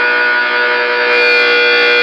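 Electric guitar played through a 1458 dual op-amp Muff Fuzz pedal, a fuzzed chord sustaining steadily with no new pick attack.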